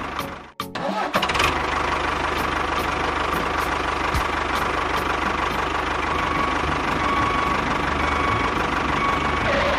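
An engine running steadily, with a high whine held over it, after a brief drop-out about half a second in.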